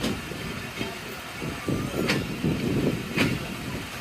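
Passenger train pulling out of a station: an uneven low rumble and clatter, with two sharp metallic clanks about two and three seconds in.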